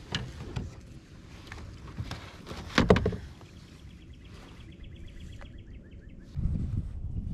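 Fishing gear being handled in a kayak: a few sharp knocks, the loudest about three seconds in, then a fast, even clicking for nearly three seconds. A low rumble comes in near the end.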